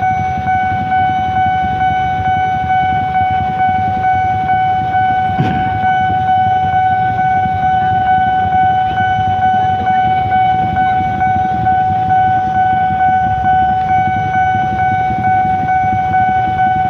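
Railway level-crossing warning signal sounding one steady, unbroken high tone while the barrier is down and a train is due, over the low rumble of idling motorbikes.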